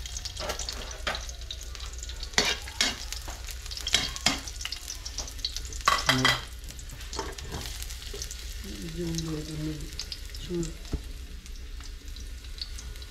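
Chopped aromatics frying in oil in a metal wok, a steady sizzle. A spatula or ladle scrapes and clatters against the wok many times in the first half, loudest around the middle.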